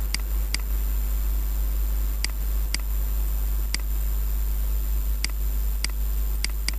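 Computer mouse clicking: about nine short sharp clicks at irregular intervals as edges are picked one by one, over a steady low hum.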